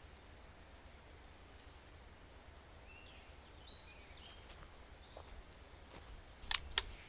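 Quiet woodland ambience with faint, scattered birdsong, then two sharp clicks about a third of a second apart near the end.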